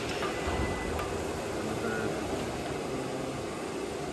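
Automatic solar cell stringing and layup machine running: a steady mechanical hum with a light click about a second in.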